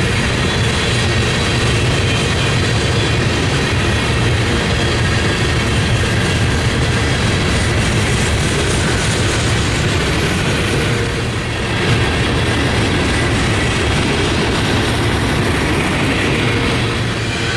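A train rolling past close by: a steady rumble and clatter of wheels over the rails.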